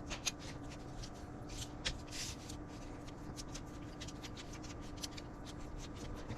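Hands working olive oil into a dressed raw quail: faint, quick rustling and small slick clicks of handling and rubbing, over a faint steady hum.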